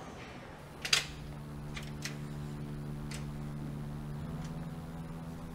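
A sharp click about a second in, then a few lighter clicks of an apartment door's lock and latch as the door is unlocked and opened. A low, steady music drone comes in with the first click and holds.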